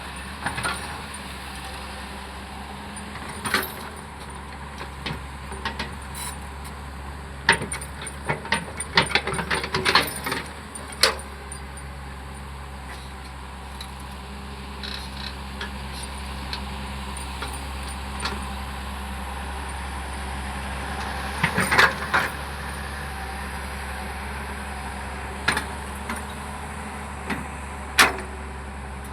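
Hyundai hydraulic excavator's diesel engine running steadily, with scattered metallic clanks and knocks, clustered about a third of the way in and again past the middle, and a sharp single knock near the end.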